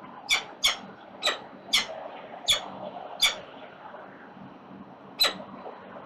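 Peregrine falcon chicks giving short, sharp begging calls, six in quick succession and one more a couple of seconds later, over a steady background hiss.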